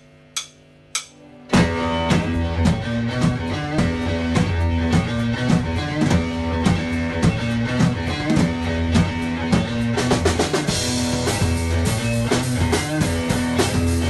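Background music: a few sharp clicks over a held chord, then about a second and a half in a full band comes in with a steady drum beat and bass.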